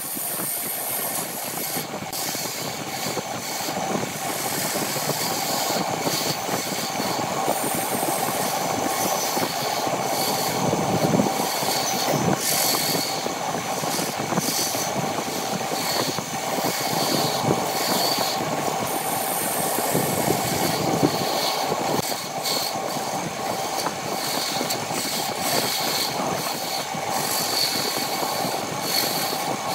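Wood lathe spinning a wooden cup blank while a hand-held turning tool cuts it, a steady scraping hiss of shavings tearing off over the machine's even whine.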